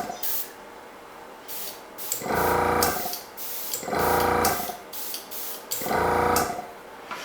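Master Airbrush compressor motor running in short bursts about every two seconds, with air hissing from the airbrush between them. It is regulated to about 20 PSI and holds its pressure while the airbrush is spraying.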